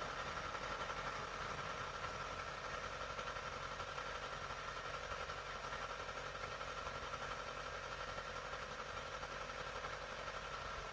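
Steady mechanical drone with a faint constant high whine, unchanging throughout.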